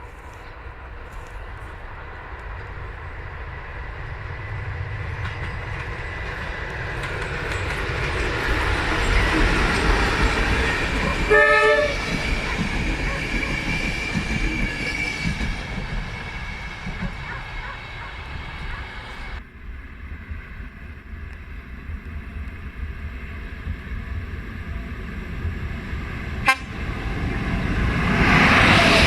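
A train approaching and running past, its rumble swelling and then fading, with a short horn blast about eleven seconds in. After a sudden change, another train is heard closing in near the end.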